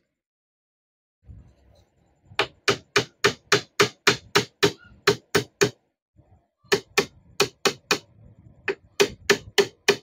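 A hammer driving a nail about an inch long through half-inch plywood into the edge of a speaker-box panel. The blows come in two runs of quick, even strikes, about three a second, with a short pause between.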